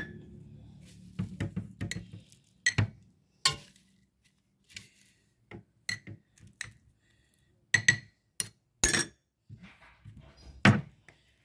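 Glass jar and kitchen dishes clinking: a dozen or so separate, sharp taps and knocks with short quiet gaps between them.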